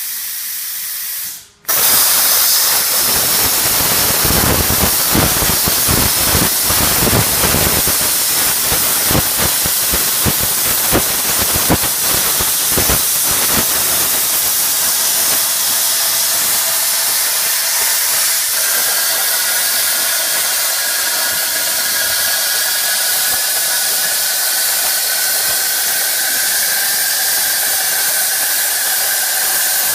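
Air plasma cutter torch on a CNC table: a steady hiss of air cuts out briefly about a second and a half in, then returns louder as the arc cuts. It crackles for the next ten seconds or so, then settles into a steady hiss with a faint high whine joining later.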